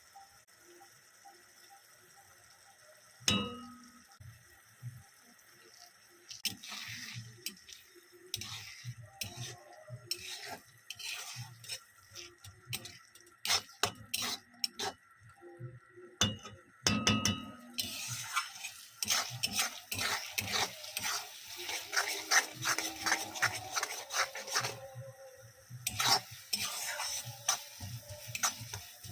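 A metal utensil stirring and scraping food in a frying pan, with clinks against the pan and one sharp ringing clang about three seconds in. Food sizzles in hot oil, loudest in the second half.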